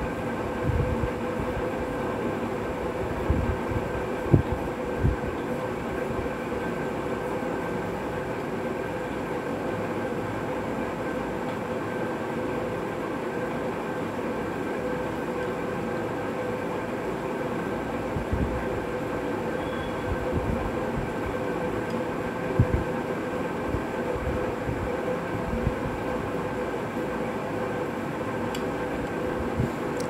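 A steady, machine-like background drone with a faint held hum running through it, broken by a few soft low thumps, most of them in the first five seconds and two more near the middle.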